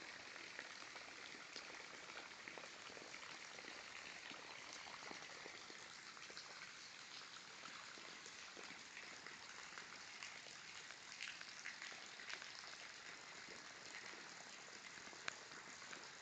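Rain falling steadily: an even hiss dotted with the small ticks of individual drops, with one sharper tap near the end.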